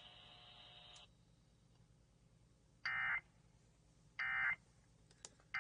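Emergency Alert System end-of-message data tones: short bursts of shrill digital warbling, each about a third of a second long and about a second and a quarter apart. Two bursts fall inside, and a third starts right at the end. They signal that the severe thunderstorm warning broadcast has ended.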